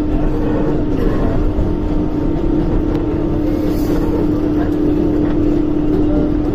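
New York City Subway 7 train car running at speed, heard from inside the car: a steady rumble of wheels on rail with a constant hum.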